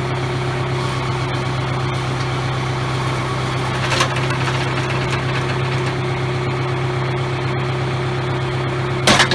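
Tractor engine idling steadily with a low, even hum. Two short sharp knocks cut through it, a small one about four seconds in and a louder one near the end.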